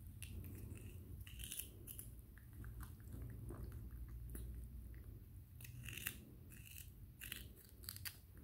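A baby macaque biting into and chewing a raw cucumber: short, irregular crunching bites and chewing, over a low steady hum.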